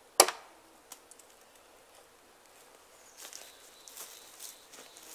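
A single sharp knock of a hatchet on the wooden ridge pole just after the start, with a fainter tap a moment later. In the last couple of seconds come soft, irregular crackles of footsteps in the grass and forest litter.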